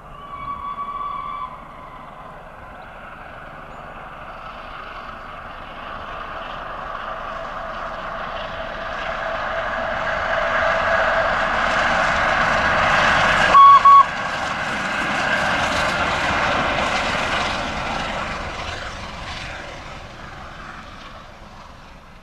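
Peppercorn A1 three-cylinder 4-6-2 steam locomotive 60163 Tornado passing at speed with its train: a rush of exhaust and wheels that swells as it comes by and fades away. Its whistle sounds briefly near the start, then gives two short, loud toots about halfway through.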